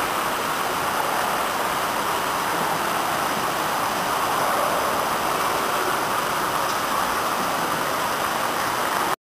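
Steady rushing and splashing of water from splash-pad ground jets spraying up and falling onto the wet floor.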